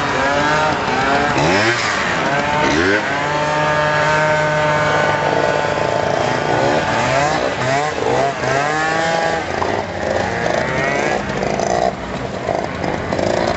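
Several scooter engines revving at once, their pitch rising and falling and overlapping. One holds a steady note for a few seconds in the middle.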